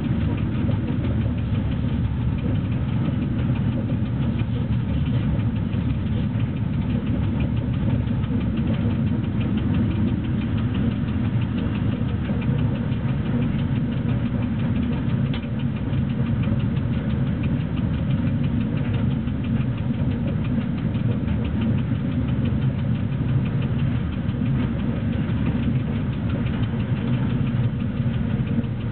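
Steady running noise inside the cab of BDZ electric locomotive 46 045 under way with a freight train: a low rumble of the running gear and traction equipment with a light, fast rattle over it.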